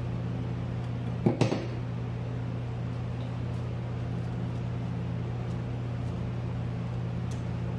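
A steady low hum in the shop, broken about a second and a half in by two or three quick sharp metal knocks as short steel pipes are shifted in a chop saw's vise.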